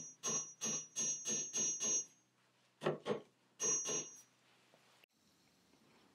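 A small wooden peg driven into a hole in a pine board with quick hammer blows, about three or four a second, in two runs with a short pause between. A thin high ring sounds over the strikes.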